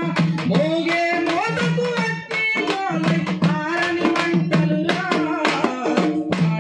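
A man singing a Telugu folk song, accompanied by two dappu frame drums beaten with sticks in a steady, driving rhythm.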